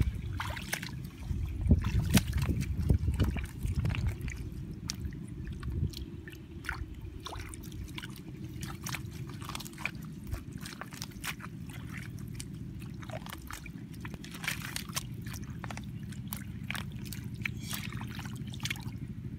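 Hands splashing and squelching through shallow muddy water and weeds, with many small splashes and drips; the splashing is heavier for a couple of seconds near the start. A steady low rumble runs underneath.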